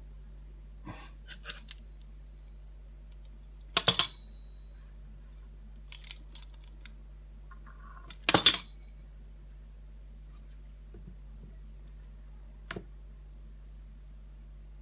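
Sharp metallic clinks and knocks of a metal pizza cutter against a stone countertop, two loud ones about four seconds in and eight and a half seconds in, with a few soft taps between.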